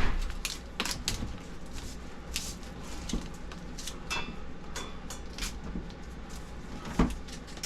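Irregular clicks and knocks of hands handling cable and tools at a metal electrical panel box while stripping wire, with a heavier knock at the start and another about seven seconds in.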